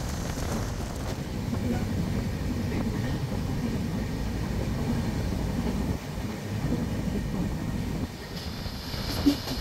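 Passenger train running along the track: a steady rumble of wheels on rails, with one sharp knock near the end.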